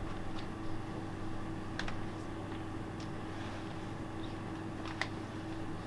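Steady hum of room tone, with a few faint clicks scattered through it, the clearest about five seconds in.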